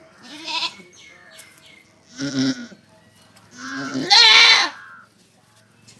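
Goat doe in labour bleating three times, short calls followed by a longer and loudest third bleat, as the kid is being delivered.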